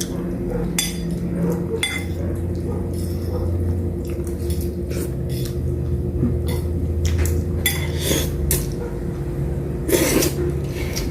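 Forks and spoons clinking against plates during a meal, short scattered clicks over a steady low hum.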